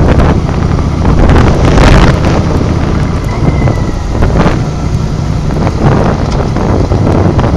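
Heavy wind buffeting on the microphone of a camera mounted on a moving motorcycle, with the engine's low rumble underneath. It comes in gusts, strongest about two seconds in.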